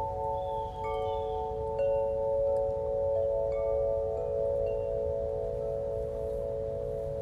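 Chimes ringing in long, overlapping tones, with a new note sounding every second or so.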